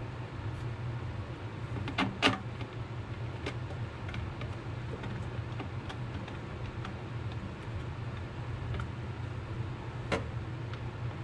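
Hand screwdriver driving screws back into the plastic housing of an Echo PB-250LN leaf blower: light ticks and scrapes, with two sharper knocks about two seconds in and another near the end. A steady low hum lies under it all.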